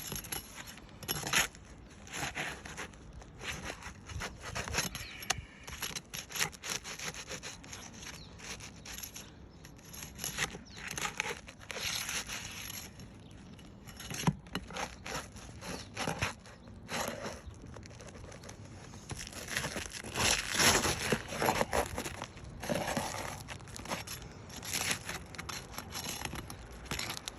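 An asphalt roof shingle being pried up and worked off its nails, with irregular scraping, tearing and sharp clicks. The shingle pulls right through over the nail heads. The loudest scraping comes about twenty seconds in.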